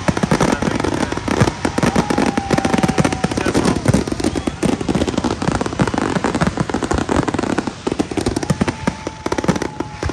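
Fireworks going off in a dense, rapid string of bangs and crackles, with a thin whistle heard over them about a second in and again near the end.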